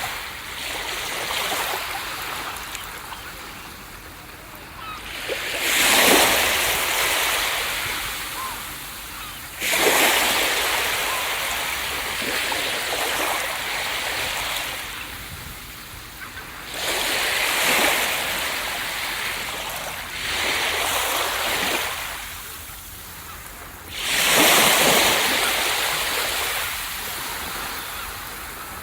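Ocean waves breaking on a beach: a steady surf hiss with a wave crashing every few seconds, five times, each surge rising fast and washing away over several seconds.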